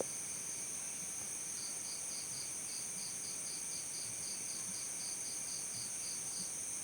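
Crickets chirping: a continuous high-pitched insect trill, with one cricket giving evenly spaced chirps at about four a second from about a second and a half in until near the end.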